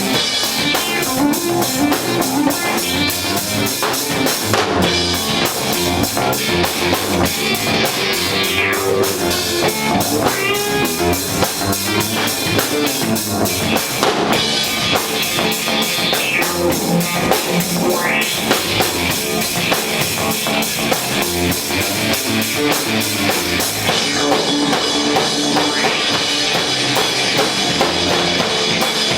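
Live rock band playing: a drum kit keeps a steady, dense beat under electric guitar, with the cymbals sounding brighter from about twenty-four seconds in.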